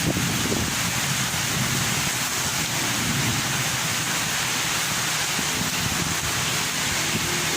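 Heavy rain falling steadily, a constant hiss of downpour on surfaces.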